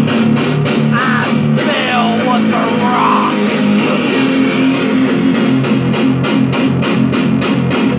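Electric guitar playing a rock riff: sustained low notes and rhythmic picking, with the strokes falling about three a second in the second half.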